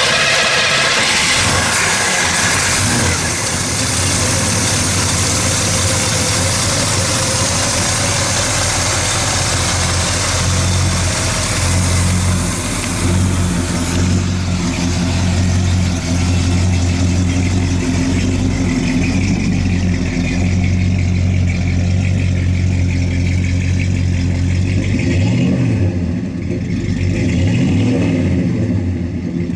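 1966 Oldsmobile Cutlass's 330 cubic-inch V8 idling steadily through a 3-inch exhaust with Flowmaster mufflers. A few quick revs rise and fall near the end.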